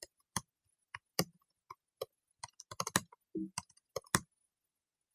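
Computer keyboard typing: a string of about fifteen light, irregular key clicks as a command is entered.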